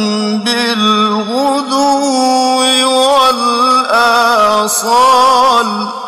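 A solo male voice reciting the Quran in the melodic mujawwad style, holding long ornamented phrases whose pitch wavers and glides. The phrase ends near the end.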